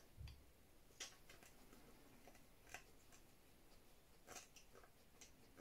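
Faint scattered clicks and scrapes of a small screwdriver turning a tiny screw into a plastic model part, the loudest about a second in, then twice more.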